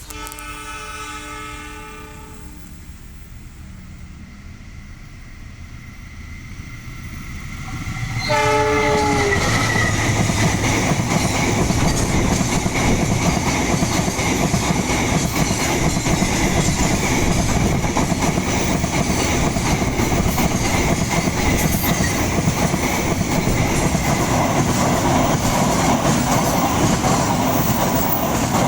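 Diesel locomotive horn sounding one long blast, then a second, shorter blast about eight seconds in as the train draws level. The passenger train then passes close by with loud, steady wheel-on-rail noise and clatter.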